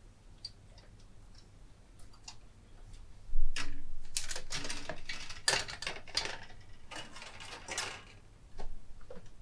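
Plastic model-kit parts on their sprues and in their bags being handled. A few light clicks come first, then from about three seconds in a long stretch of crinkling and clattering, and a last short clatter near the end.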